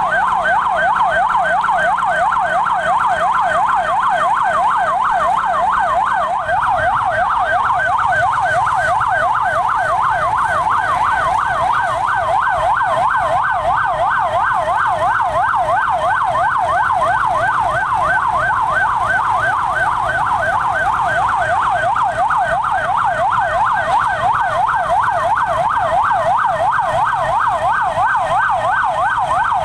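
Emergency vehicle siren on a rapid yelp, sweeping up and down in pitch several times a second, steady and unbroken.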